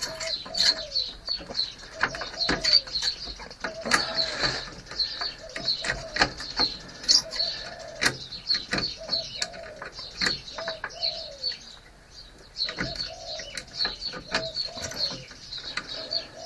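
Scattered small clicks and knocks of a Holden HD/HR headlight switch being pressed and wiggled under the dash while its shaft refuses to release. Birds chirp and coo steadily in the background.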